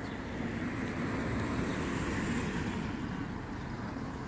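A car driving past on the street, its tyre and engine noise swelling and then fading around the middle.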